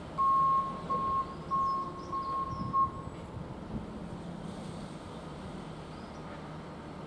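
Electronic beeping: one steady high tone pulsing about five times in uneven lengths over roughly three seconds, then stopping, with faint bird chirps.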